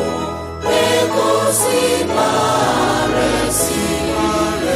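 Gospel choir music: voices singing together over an instrumental accompaniment.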